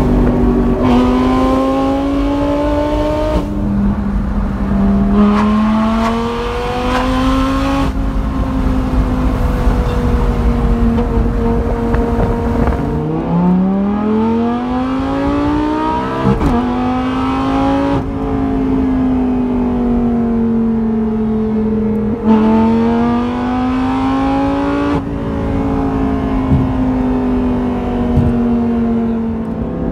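Lamborghini Gallardo LP570 Superleggera's 5.2-litre V10 through a straight-piped, decatted Larini exhaust, heard from inside the cabin while driving. The engine note rises and falls with throttle and gear changes, dipping low and climbing back about halfway through, with brief sharp cracks at a few of the drops in pitch.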